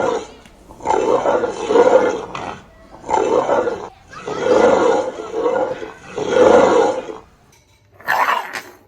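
A rock scraped across a hard surface as foley for lion roars: a series of rough, roar-like rasps, each about a second long, with a sharper, higher scrape near the end.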